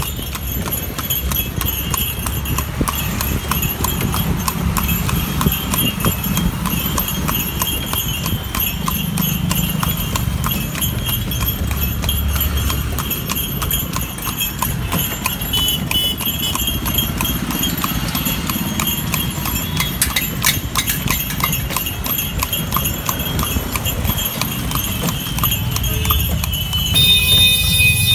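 Horse's hooves clip-clopping on a paved street as it pulls a horse cart, over a low rumble of traffic. About a second before the end a horn starts to sound.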